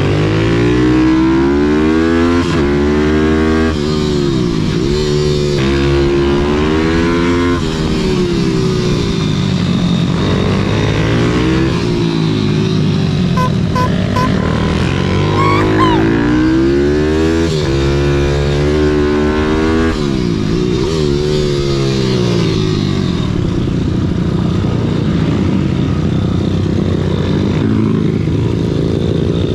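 YCF SM 190 Daytona pit bike's single-cylinder four-stroke engine revving hard, its pitch climbing and falling back again and again as the bike accelerates out of corners and slows into them, heard from on the bike.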